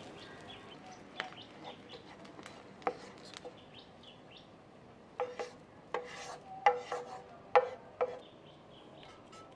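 Nonstick frying pan and wooden spatula knocking and clinking against a ceramic bowl as the salted egg sauce is scraped out. There are about eight sharp knocks, the loudest in the second half, with faint bird chirps behind them.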